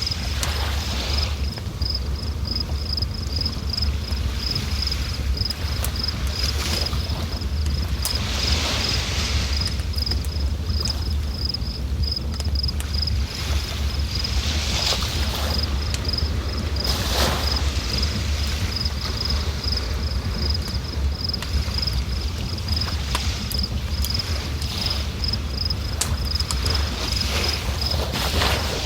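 River water rushing steadily, with a deep rumble and now and then a brief swell of hiss. Over it a cricket chirps steadily, regular high-pitched pulses about two a second.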